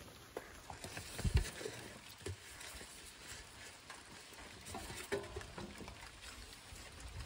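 Faint patter of light rain, with scattered soft ticks and a dull thump about a second in.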